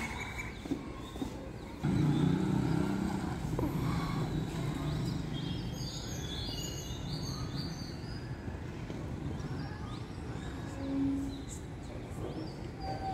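Outdoor street ambience: a low traffic rumble that comes in suddenly about two seconds in and carries on, with birds chirping.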